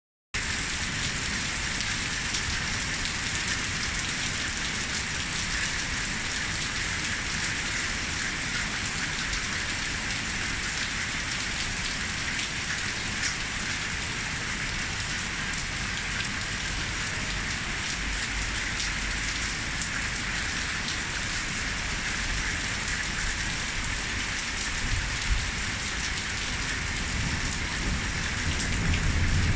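Heavy downpour: a steady, dense hiss of rain pouring down. A low rumble swells near the end.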